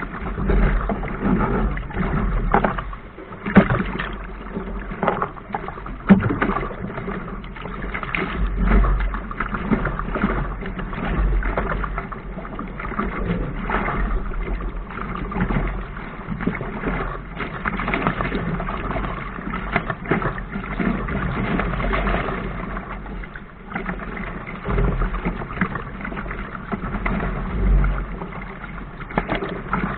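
Water rushing and splashing along the hull of a Laser sailing dinghy driving through choppy water, with a few sharp slaps of waves against the bow. Wind buffets the deck-mounted camera's microphone in uneven surges.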